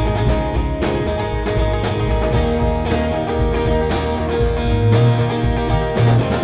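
Live rock band playing an instrumental passage: guitar and bass guitar over a drum kit keeping a steady beat.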